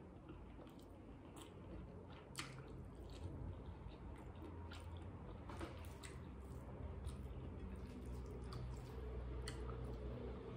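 Chewing and eating by hand: soft wet squishes and scattered sharp mouth clicks as rice and sautéed broccoli are chewed, over a steady low hum.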